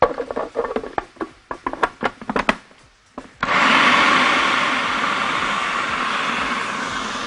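A few clicks and knocks as the plastic food processor bowl and lid are handled. About three and a half seconds in, the food processor's motor starts suddenly and runs steadily, grinding bulgur kibbeh dough toward a paste.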